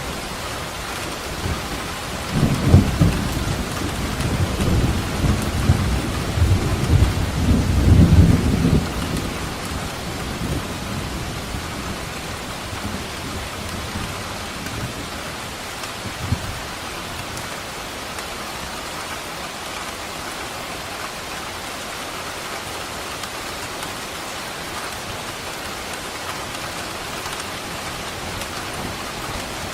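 Steady heavy rain with a long rolling rumble of thunder a few seconds in that dies away after several seconds; a short, fainter thud of thunder comes about midway.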